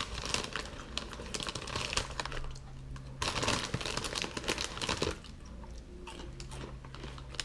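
Crinkly Cheetos snack bag rustling as a hand rummages inside it for a Cheeto, in two spells of about two seconds each, with quieter crackling near the end.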